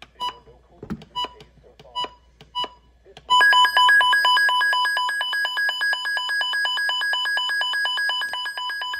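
NOAA weather radio being siren-tested: a few short beeps as its buttons are pressed, then about three seconds in its alert alarm starts, a loud, fast-pulsing high beep that holds steady.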